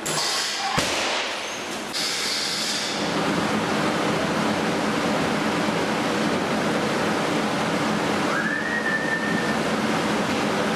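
Pendulum impactor of a glass impact-test rig striking a safety glass panel: a sharp bang about a second in, then the glass crackling and breaking for about two seconds. After that a steady rushing noise carries on, with a brief whistle-like tone that rises and holds near the end.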